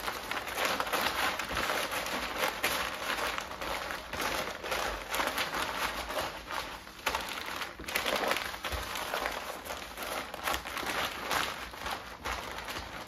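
Tallow-greased butcher paper crinkling and rustling as it is folded and pulled tight around a brisket by hand, a continuous run of irregular crackles.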